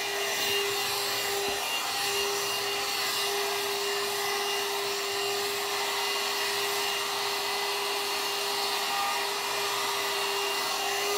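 One-step hot-air brush hair dryer running steadily: an even rush of air with a constant motor whine.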